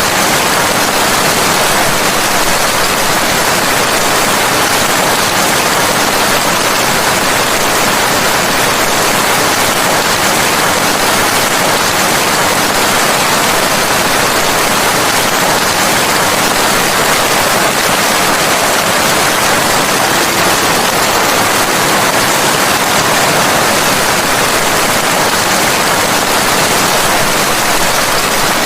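Steady, even rain noise, a dense hiss with no distinct drops or thunder, unchanging throughout.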